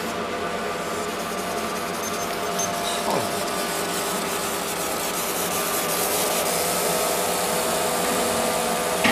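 A CS-F50 50 W fiber laser marking machine running a marking job: a steady machine whir with several held tones that grows a little louder about six seconds in.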